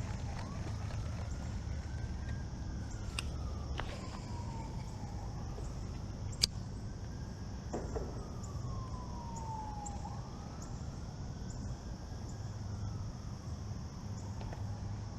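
A siren wailing, its pitch slowly rising and falling about every five seconds, over a steady high chirring and a low rumble. A few sharp clicks, the loudest about six seconds in.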